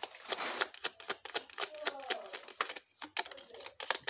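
Tarot cards being shuffled overhand in the hands: a quick, irregular run of light card clicks and flicks.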